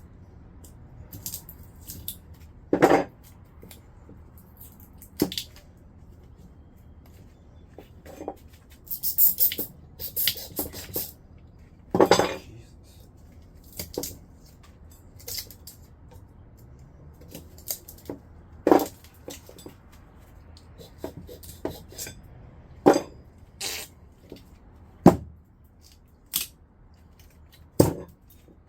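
Scattered metal clinks and knocks, with a short run of scraping about a third of the way in, as scrapped microwave-oven transformers and tools are handled to check whether the windings are copper or aluminum.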